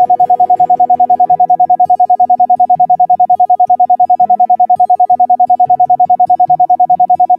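Sound-therapy track: a single steady mid-pitched tone pulsing on and off rapidly and evenly, about ten times a second, in the manner of an isochronic tone. Beneath it, soft keyboard-like music with slow-changing sustained low notes.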